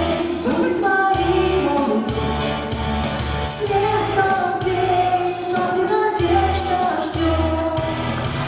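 Female vocalist singing a pop song over a backing track with a steady beat.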